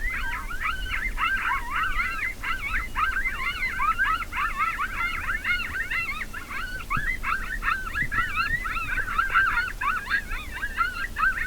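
A chorus of coyotes yipping and howling, many high, wavering voices overlapping without a break.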